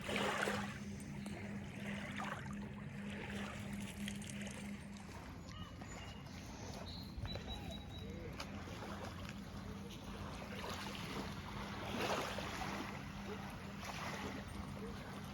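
Outdoor ambience of distant road traffic: a steady rumble with a few louder swells, the loudest at the start and about twelve seconds in, over a low hum that stops about five seconds in.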